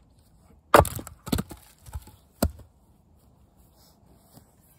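Axe splitting firewood on a chopping block: one loud, sharp wooden crack a little under a second in, then four lighter wooden knocks over the next two seconds as split pieces knock together.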